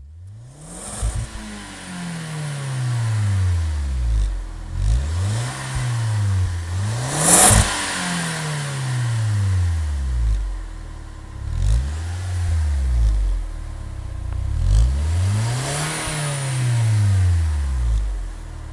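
VW GTI 20th Anniversary Edition's turbocharged four-cylinder engine, through its stock exhaust, revved up and let fall back several times in quick blips. A sharp burst sounds at the top of one rev about halfway through.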